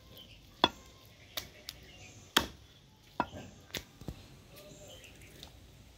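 Heavy cleaver chopping mutton on a wooden stump block: about seven sharp chops at uneven spacing over the first four seconds or so, the loudest about two and a half seconds in.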